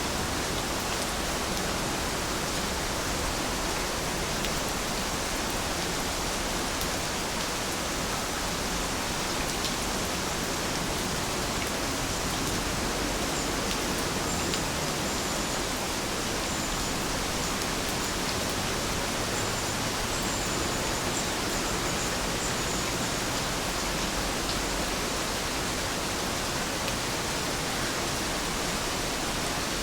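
Steady rain falling, an even hiss that does not change. A few faint high chirps sound through it in the middle.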